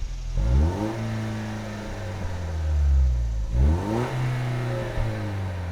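Toyota Tacoma's turbocharged four-cylinder engine and exhaust revved twice, each blip rising quickly and then falling slowly back toward idle.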